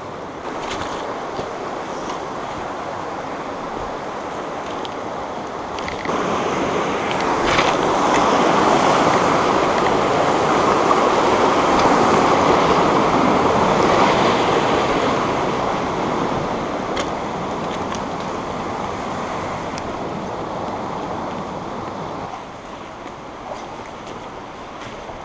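Rushing water of a small mountain stream, swelling to its loudest about a third of the way in where a little cascade tumbles close by, then easing back to a softer, steadier flow near the end.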